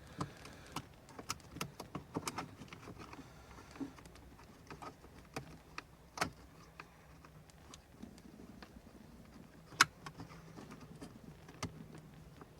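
Scattered clicks and light rattles of a wiring harness and its plastic connectors being handled and routed down through the dashboard, with one sharp click near ten seconds in.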